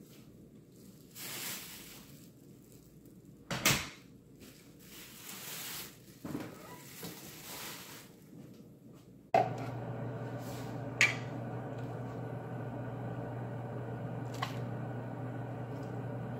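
Kitchen handling sounds: a few soft rustles and one loud sharp click, like a cupboard or drawer. About nine seconds in a steady hum sets in, broken by two more sharp clicks.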